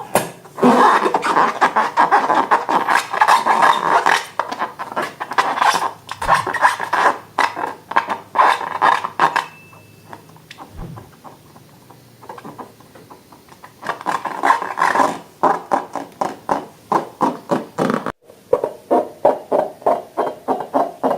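Slime being squeezed and worked by hand, giving dense wet crackles and clicks in bursts. After a cut a little after 18 s it turns to evenly repeated squelching strokes about three a second.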